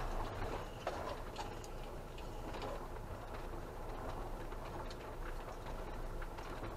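Camper van rolling slowly over a gravel track, heard from inside the cab: a low engine and road rumble with irregular small ticks and crunches from stones under the tyres.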